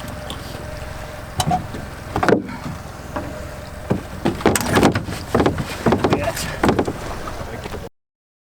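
Aboard a fishing boat: a steady low background of the boat on the water, with a run of irregular knocks, clunks and clatters of gear being handled on deck. The sound cuts off abruptly near the end.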